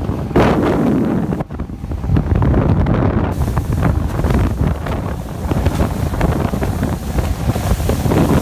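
Heavy wind buffeting the microphone over a jet ski running fast across choppy water, with water rushing and spraying around the hull. The wind noise briefly drops about a second and a half in.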